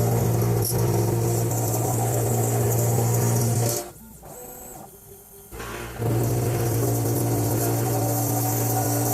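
CNC machine cutting an enclosure: a steady motor hum with a high hiss over it. It drops away for about two seconds midway, then starts again.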